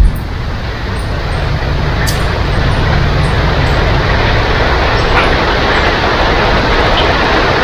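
Rain falling steadily, swelling a little louder over the first few seconds and then holding even.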